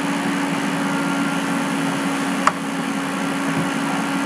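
Steady machine hum with a single low droning tone, and one sharp mouse click about halfway through.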